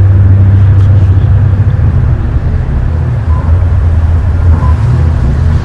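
A loud, steady low drone with a rough, creaking edge, from no source that can be seen or placed. Those present call it creaking and cannot tell where it comes from.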